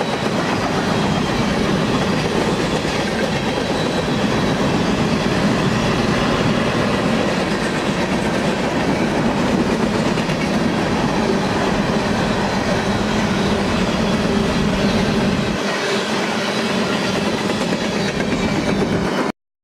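Empty covered grain hopper cars of a freight train rolling past, a steady rumble and rattle of steel wheels on the rails with clickety-clack over the joints. About three-quarters of the way through the low rumble drops away as the last cars go by, and the sound cuts off suddenly just before the end.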